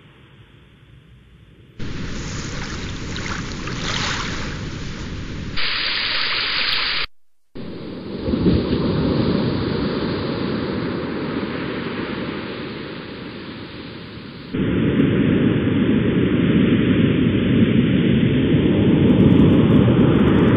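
Steady rushing noise of ocean surf, made of several recordings spliced together: the sound jumps abruptly in loudness and tone about two seconds in, again between about five and seven seconds, and near fifteen seconds, with a brief cut-out to silence about seven seconds in.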